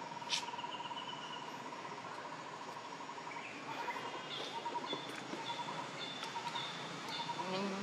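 Outdoor forest background: an insect-like trill pulses steadily for the first few seconds, then gives way to short, repeated chirping calls. A low voice-like sound starts just at the end.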